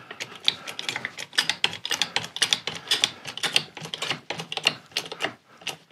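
Rapid, irregular clicking and ticking from a golf shaft puller as it presses an iron head off its heated shaft, several clicks a second.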